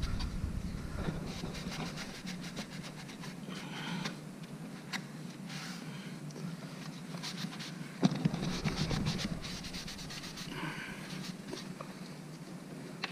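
Cloth rag rubbing and wiping across a wooden post in irregular strokes, taking off the excess wood stain, with a louder stretch of rubbing about eight seconds in.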